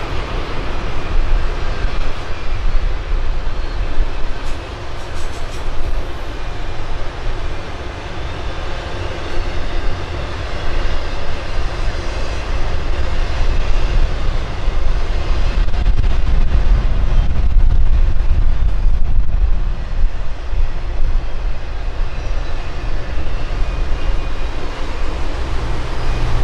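Freight train of autorack cars rolling past: a loud, steady rumble of wheels on the track, strongest in the low end, swelling a little past the middle.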